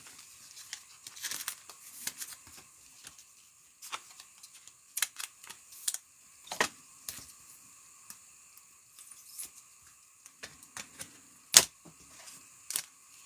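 Trading cards being handled and sorted: scattered light clicks and short rustles of card stock and packaging, with one sharper click toward the end.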